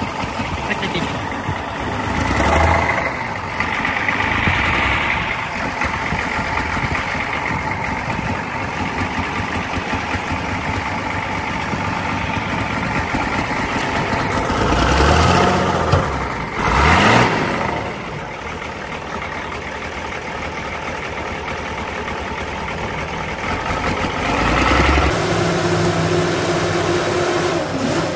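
Six-wheeled off-road truck engine running under load as the truck, on chained tyres, climbs a snowy dirt pile; the revs rise and fall, loudest about two-thirds of the way through. Near the end the sound cuts to a different, steadier engine drone from a log skidder.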